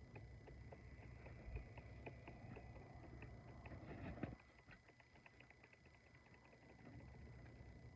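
Near silence: a faint low rumble with light scattered ticks, and a faint rushing noise that stops suddenly about four seconds in.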